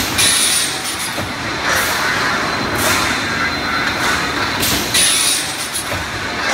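Flying friction saw cutting moving steel pipe: two shrill screeching cuts, each under a second long, about five seconds apart. Between them come shorter hissing surges, over the steady running of the saw motor and pipe line.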